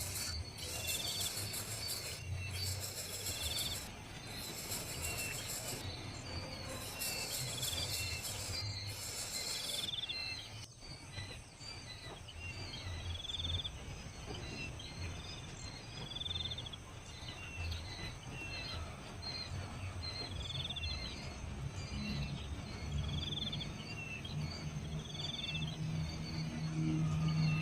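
Outdoor insect and bird ambience: insects buzz and trill steadily while a bird gives a short call about every second and a half. A low hum runs underneath and gets louder near the end.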